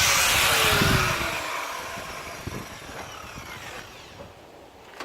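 A power tool spinning down after being switched off: its whine falls in pitch and fades away over about three seconds, followed by a few faint knocks.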